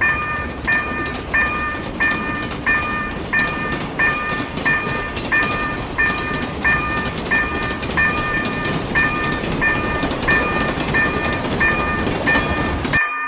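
Japanese level-crossing warning bell ringing its 'kan-kan' strikes about one and a half times a second, over the steady running noise of a passing train. Both stop suddenly near the end.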